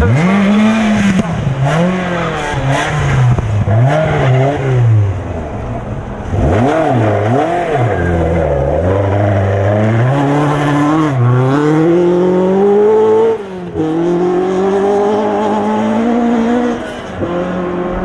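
Rally car engines revving hard on gravel, the pitch climbing and then dropping at each gear change and lift. The sound switches abruptly to a different car twice; the middle car is a Ford Escort Mk2.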